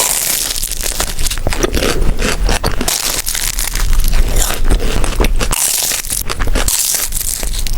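Close-miked crunching and crackling of flaky egg tart pastry being bitten and chewed, a dense run of sharp crisp crackles.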